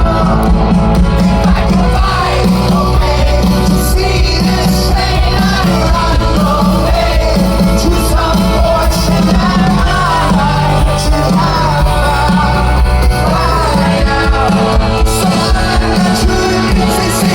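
A live rock band playing loudly, with singing over the guitars, bass and drums.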